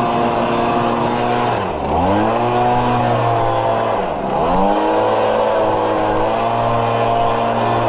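Lawn mower's small petrol engine running steadily, twice briefly bogging down in pitch and recovering, as under a sudden load such as thick grass.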